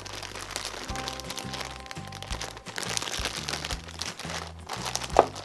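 Thin clear plastic bag crinkling and rustling as hands pull skeins of yarn out of it, with one brief louder crackle near the end, over background music with a steady bass line.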